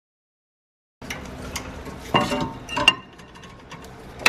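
Silent for about the first second, then metal clinks and clanks as the rear brake caliper carrier is worked loose and pulled off, with two louder ringing clanks about a second apart midway and a sharp click at the end.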